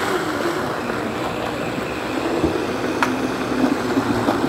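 Vitamix blender running steadily on low speed, blending chunks of cucumber, avocado and greens with a little water.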